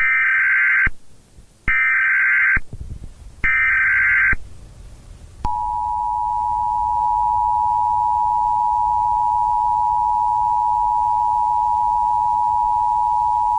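Emergency Alert System SAME header: three short bursts of warbling digital data tones, each just under a second long. Then, from about five and a half seconds in, the steady two-tone EAS attention signal (853 and 960 Hz together) sounds as one held, unbroken beep.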